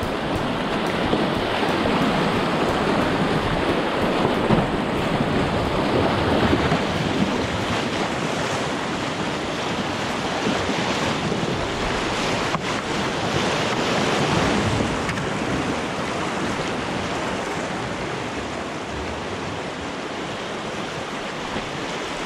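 Muddy, flood-swollen creek rushing and splashing through small rapids around a stand-up paddleboard riding down it, with wind buffeting the microphone. The rush eases off slightly over the last few seconds.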